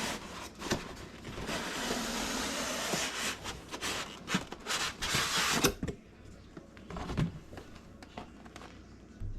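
Packaging being handled as a box is opened: a stretch of rustling and crinkling with many sharp clicks, then quieter, with a few light knocks near the end.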